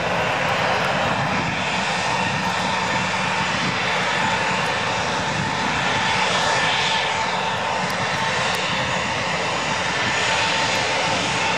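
Airbus A300-600R's two Pratt & Whitney PW4158 turbofans at takeoff thrust as the aircraft climbs away: a steady, loud jet rush with a thin steady whine running through it.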